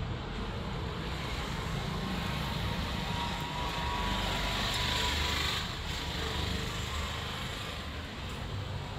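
Low, uneven rumble under a steady hiss that swells to about five seconds in and then falls away.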